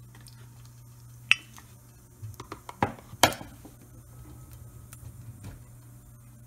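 Mustard seeds starting to pop in hot oil in a stainless steel pot: scattered sharp ticks, with a couple of louder metallic clinks about three seconds in, over a steady low hum.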